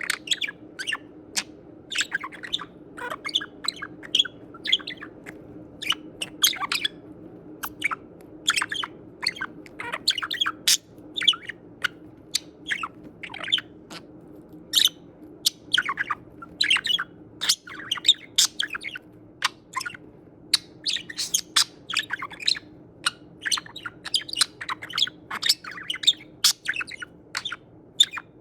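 Budgerigar chattering: a continuous run of quick, short chirps, several a second, over a faint steady low hum.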